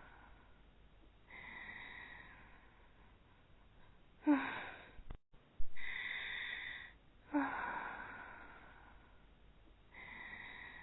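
Voiced anime snoring by two sleeping girls, taking turns. Sharp, loud snores come about four, five and a half and seven and a half seconds in, between softer, drawn-out breathy exhales.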